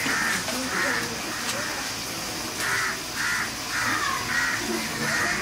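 Crows cawing repeatedly, about seven short harsh caws: two at the start, then a pause, then a run of caws roughly every half second, over a low murmur of voices.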